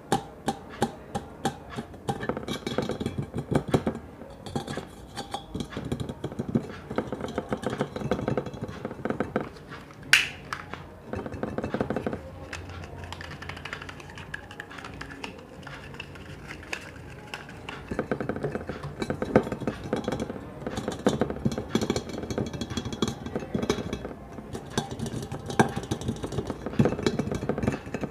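ASMR tapping: rapid fingertip taps and clicks on hard objects in dense bursts, thinning out for a few seconds in the middle, with one sharp ringing ping about ten seconds in.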